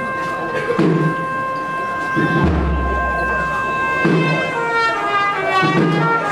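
Processional brass-and-drum band playing a march behind the float. The brass holds a long chord, then plays a falling run of notes about two-thirds of the way through, over a slow drum beat roughly every second and a half.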